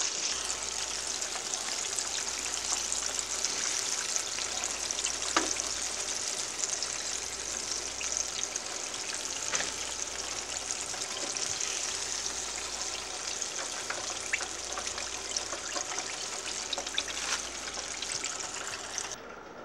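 Breaded chicken wings deep-frying in hot oil in a pan: a steady sizzle with scattered small crackles. It cuts off abruptly near the end.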